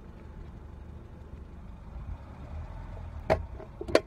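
Car engine running with a steady low rumble, and a few sharp clicks near the end.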